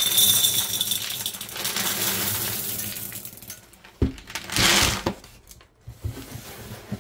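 Chocolate chips poured from a plastic canister into a glass measuring cup: a dense rattle of chips hitting glass for about the first three seconds. About four seconds in comes a knock, then a second short, loud pour, then a few scattered clicks.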